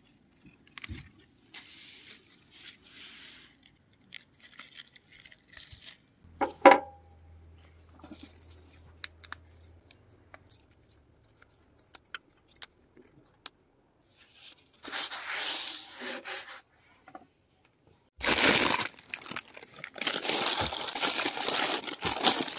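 Paper bread bag rustling and crinkling as it is handled, in two bouts, the longer and louder one near the end. About six seconds in there is one sharp knock with a brief ring.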